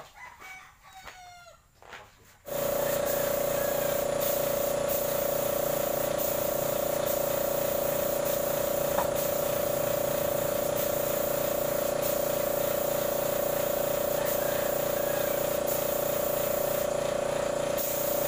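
Faint bird calls for the first two seconds. About two and a half seconds in, an air compressor and spray gun start abruptly and run steadily: a loud, even hum with a strong single tone under a wide hiss of spraying air. The compressor is working freely now that its clogged air intake has been cleaned.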